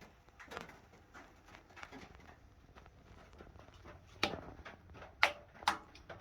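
Scattered clicks and knocks of hard objects being handled, soft at first, then three louder sharp knocks in the second half; no motor is heard running.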